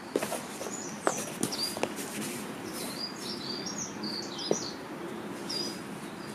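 Songbirds chirping and calling, with several sharp knocks and scuffs of feet and a body landing on foam exercise mats as one person is thrown to the ground.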